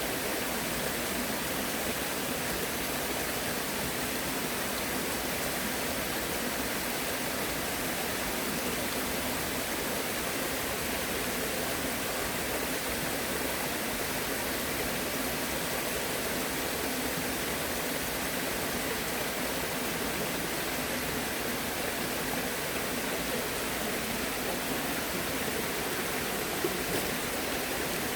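Flowing water rushing steadily, a continuous even hiss with no let-up.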